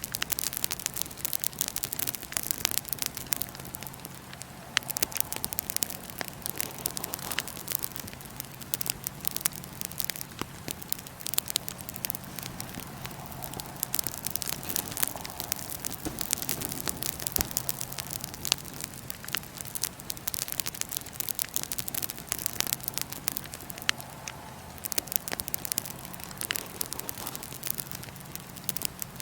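Wood fire in a fire pit crackling, with frequent sharp pops and snaps at irregular intervals over a steady low hum.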